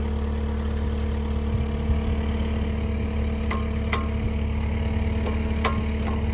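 Skid steer (compact track loader) engine running steadily at an even speed. Three short clanks stand out about halfway through and near the end.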